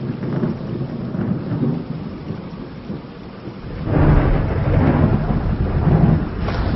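Thunder rolling over steady rain. The rumble grows louder and heavier about four seconds in, then eases near the end.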